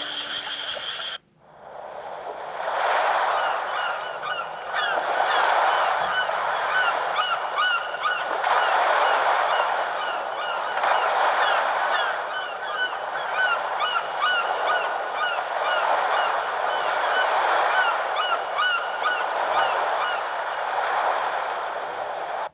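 Nature-sound ringtone from a Samsung GT-S7562L phone: a flock of birds giving many short, repeated calls over a noise that swells and fades every few seconds. It starts about a second in, right after the previous tone cuts off.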